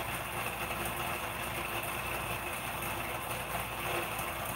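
Steady background hum and hiss of a running machine, unchanging throughout.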